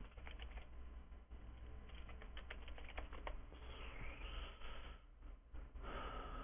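Computer keyboard typing: two short runs of key clicks, over a low steady hum.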